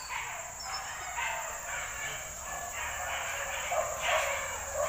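Several faint, uneven animal calls from a distance, one after another.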